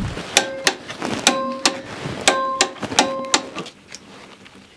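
Wrench clicking on the lower suspension wishbone bolts: four pairs of sharp metallic clicks about a second apart, each pair joined by a short metallic ring.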